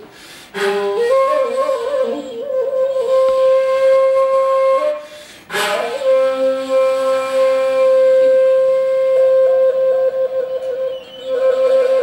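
Shakuhachi, an end-blown bamboo flute, playing two long phrases, each opening with a breathy attack. The notes are held, bending and wavering around the pitch, and the second long note breaks into a rapid fluttering trill from about nine seconds in.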